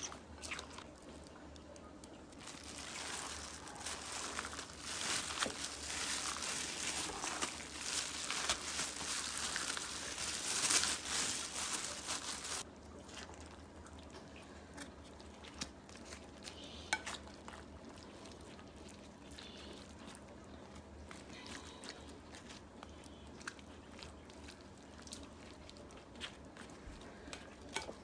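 Hands tossing and mixing cut vegetables and napa cabbage with chili seasoning for kimchi in a glass bowl. A busy rustling full of small clicks stops abruptly about halfway through, then quieter handling with scattered light clicks follows.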